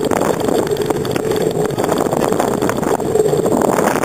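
Steady rushing, rumbling noise of a bicycle rolling along an asphalt street, picked up by a camera mounted on the handlebars, with a steady hum running through it.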